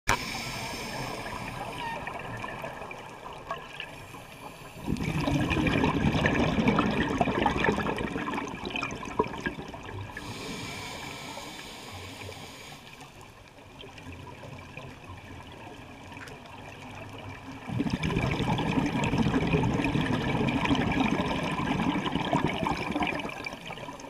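Underwater bubbling from a scuba diver's regulator as the diver breathes out, in two long gurgling bursts of several seconds each, with quieter stretches before and between them.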